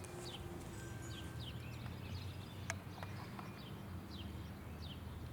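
The last of a Federal Signal 2001-DC warning siren winding down, a faint falling tone that fades out about a second in, over a steady low rumble, with birds chirping in short falling notes about twice a second.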